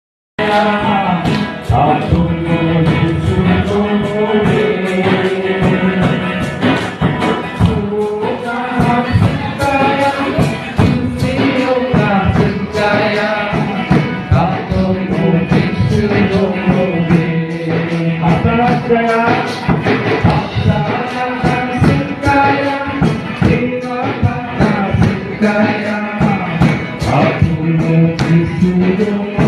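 Garo gospel worship song: voices singing over instrumental backing with a steady percussion beat.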